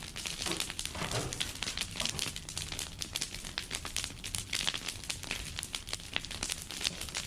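Brush-pile bonfire crackling: a dense, irregular run of sharp pops and snaps from burning branches.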